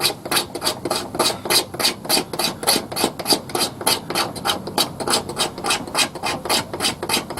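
Victorinox Pioneer pocket knife blade scraping a stick of Douglas fir fatwood with the edge, in quick, even rasping strokes, several a second, shaving off fine scrapings for fire tinder.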